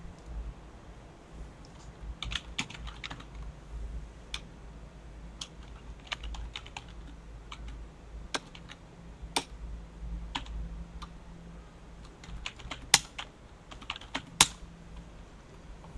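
Typing on a computer keyboard: irregular key clicks with pauses between them. Near the end come two sharper, much louder key strikes.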